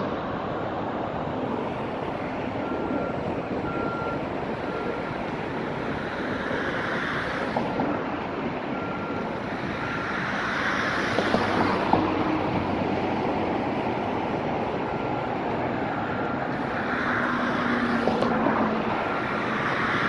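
Steady rush of road traffic passing on the bridge. Over it, a construction machine's reversing alarm beeps over and over, about once a second.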